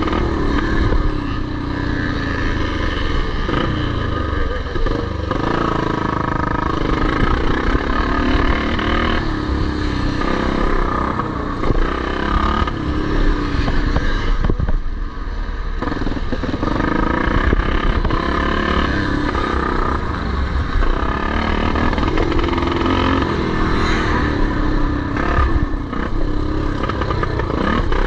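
Vintage motocross motorcycles racing, their engines revving up and falling back over and over, with more than one engine heard at once.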